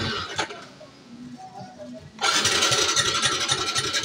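Hard-starting motorcycle engine being cranked without catching: a cranking burst ends just after the start, and after a short pause a second cranking attempt begins about two seconds in.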